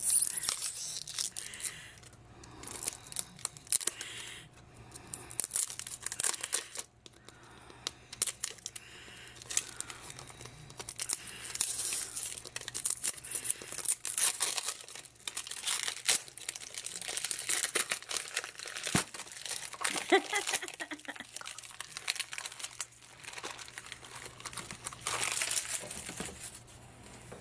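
Tight plastic shrink wrap and seal strips being picked at with fingernails and peeled off a plastic toy capsule ball: irregular crinkling and tearing in short bursts.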